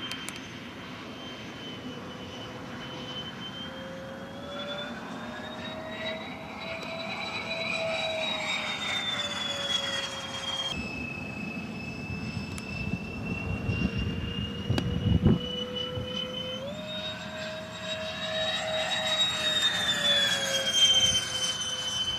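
Twin 92 mm electric ducted fans of a FlyFly MiG-29 RC jet, driven by 2000Kv brushless motors, whining in flight. The pitch rises and falls slowly as the jet passes and the throttle changes, with a break near the middle and a sudden step up in pitch about two-thirds through.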